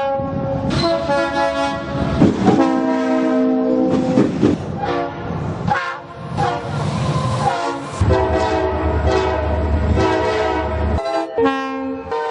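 Locomotive multi-chime air horn sounding a series of blasts, some long and some short, with the low rumble of the train coming in for a few seconds in the latter half.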